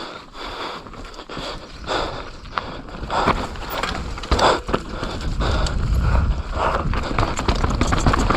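Mountain bike descending a wet dirt trail: knobby tyres scrubbing and spraying over the ground with a steady patter of chain and frame rattles, and wind rumble on the microphone building about halfway through as speed rises.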